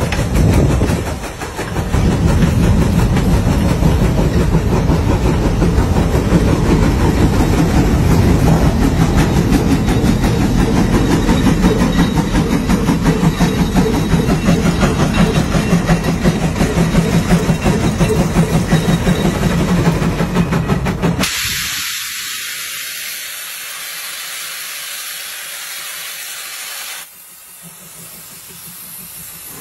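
Steam traction engine working under load, pulling a gang plow, its exhaust chuffing in a fast, steady beat. About two-thirds of the way in the beat cuts out suddenly and a steady hiss of steam is left, which drops in level near the end.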